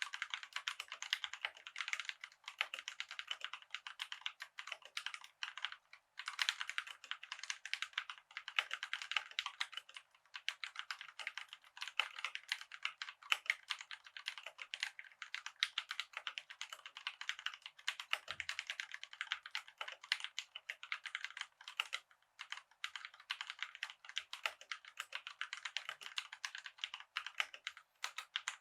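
Continuous fast typing on a COX CK87 tenkeyless mechanical keyboard with tactile Gateron brown switches: a dense run of key clacks with a few short pauses.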